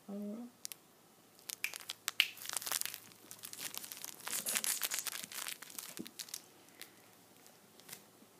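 Corgi puppy's paws scrabbling across a rug as she dashes off, a dense run of scratchy, crinkly clicks and rustles lasting a few seconds. A brief low hum comes just before.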